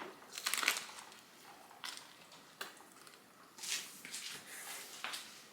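Faint, soft eating sounds from chewing a rice paper wrap: a few short wet smacks and rustles at uneven intervals, the clearest a little over halfway through.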